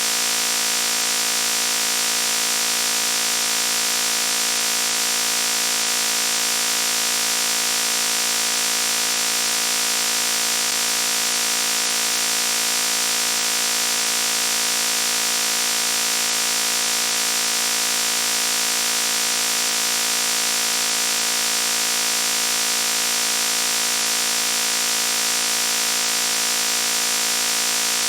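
A loud, steady buzzing noise that never changes in pitch or level, harsh and rich in high overtones.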